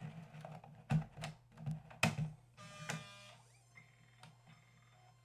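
Floppy disk being pushed into a Panasonic SuperDisk 240 drive: a few sharp clicks as the 720K double-density disk seats, then the drive's motor whirs up for about a second and settles into a faint steady whine as it spins the disk.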